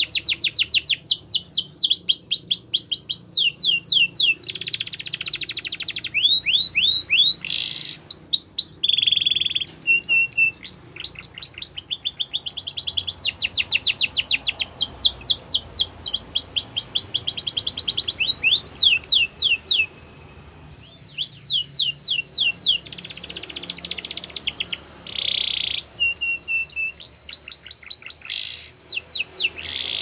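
Canary singing a long song of fast trills: rapid runs of repeated downward-sweeping notes, switching from one trill to the next every second or two, with a short break a little past the middle.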